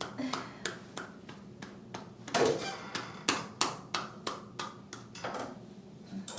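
Quick, regular percussive taps on a person's body, about three a second, with a louder, longer rubbing or shuffling sound about two and a half seconds in.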